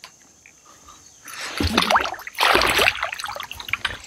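Water splashing and dripping beside a kayak, in two bouts starting about a second in.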